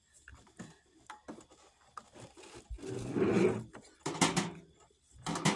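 Glass canning jars being handled: a metal screw ring rubbing as it is twisted onto a jar, then a few louder knocks and clinks in the second half as jars are set into the canning pot.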